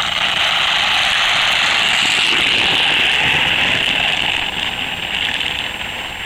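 Drift trike's hard plastic rear wheels rolling and sliding on asphalt downhill: a steady, loud scraping hiss that eases a little about four and a half seconds in.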